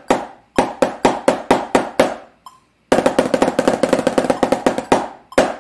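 Drumsticks striking a snare practice pad at forte: a sixteenth-note sticking pattern of separate strokes, then about three seconds in a roll of rapid strokes lasting about two seconds (the exercise's 17-stroke roll), closing with single accented strokes.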